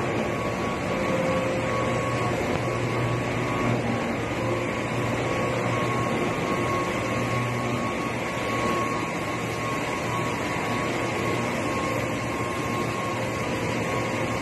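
Sugar mill machinery running: a constant, loud industrial din with a steady low hum and a thin, steady high whine.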